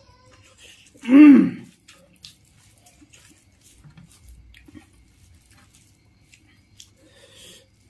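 Close-up eating sounds: fingers squishing and mixing rice on a banana leaf, with soft chewing and small mouth clicks. About a second in, the eater makes one short voiced hum that rises then falls in pitch, the loudest sound here.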